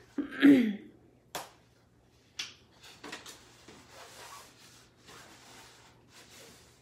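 Tissue paper and a fabric poster rustling as they are handled, with two sharp clicks about a second and a half and two and a half seconds in. A short burst of voice near the start is the loudest sound.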